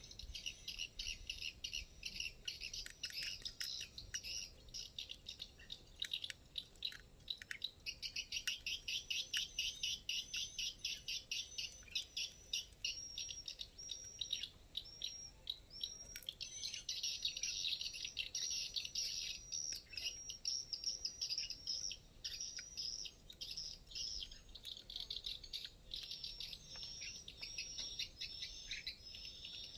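Small birds chirping: high-pitched short notes in quick runs, stopping and starting over and over.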